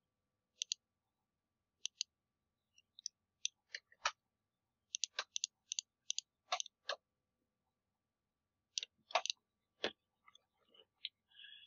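Computer mouse clicking: short, sharp clicks, many coming in quick pairs, scattered through with gaps, and a busier run a little past the middle.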